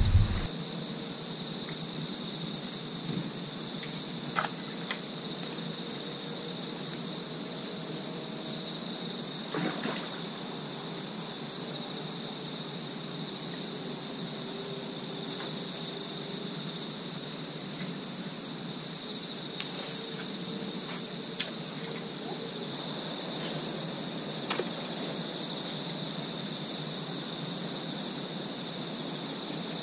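Crickets and other night insects chirring steadily in several high-pitched bands, with a few short clicks scattered through.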